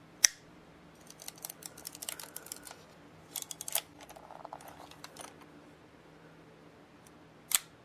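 Yashica Electro 35 GSN camera mechanism, top cover off: a sharp click, then a run of small ratcheting clicks as the film advance is wound, and another sharp click near the end. The clicks include the 'clop' of the shutter linkage catching on its retainer, the sign that the latch is engaging.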